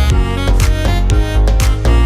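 Background music with a steady beat and plucked or bowed string instruments over a heavy bass.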